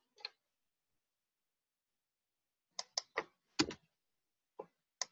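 Scattered clicks of a computer keyboard and mouse: one click just after the start, a pause of about two and a half seconds, then a run of irregular clicks, the loudest a little past halfway.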